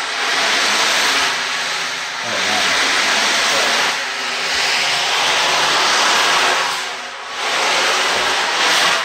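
Loud, steady white-noise hiss, briefly dipping a few times, played as a stand-in for the noise of a ship's power plant in a microphone test.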